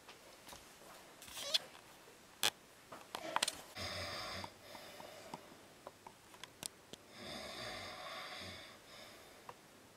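A person snoring: two long snores a few seconds apart, each with a rattling pulse. A few sharp clicks and knocks come before the first snore.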